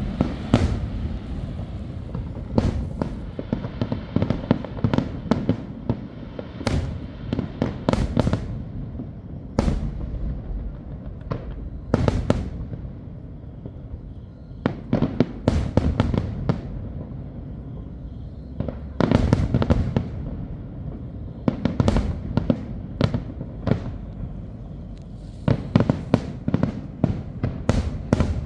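Fireworks display: bangs from bursting shells at irregular intervals, often in quick clusters of several, over a continuous low rumble.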